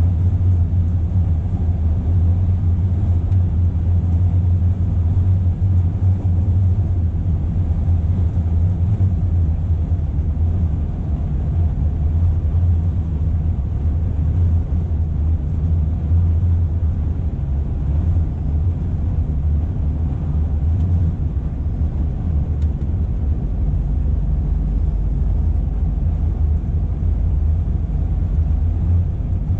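Scania R480 truck's diesel engine and tyre rumble heard from inside the cab while cruising steadily: a deep, even drone. The lowest rumble grows heavier in the last few seconds.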